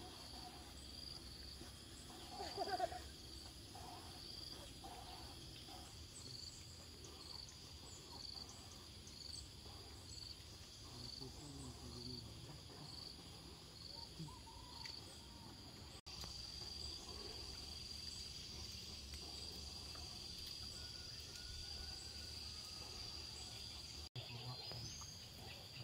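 Insects chirping in a high, even rhythm, about one and a half chirps a second, changing after an abrupt break a little past halfway to a continuous high trill. A brief, louder, lower sound comes about three seconds in.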